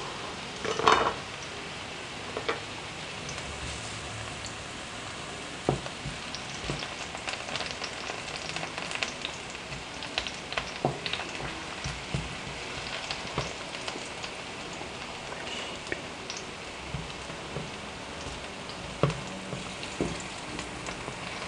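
Carrot slices sizzling in hot oil in a stainless steel frying pan, a steady hiss with scattered clicks and scrapes as a slotted spatula turns them.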